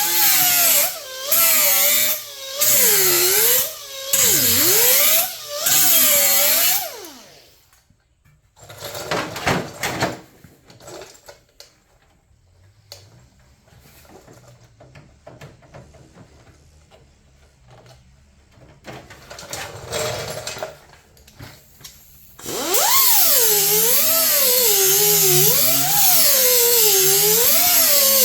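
A power grinder grinding the edge of an 18-gauge steel hood patch panel to trim it for fit, its whine dipping and rising in pitch as it bites. It runs in several short bursts over the first seven seconds, then a quieter stretch follows with light knocks and handling noises, and a steady run of grinding fills the last five or six seconds.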